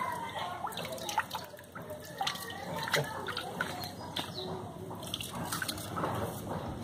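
Irregular water drips and small splashes as a hand-held mesh fish net is dipped into and lifted out of a garden pond.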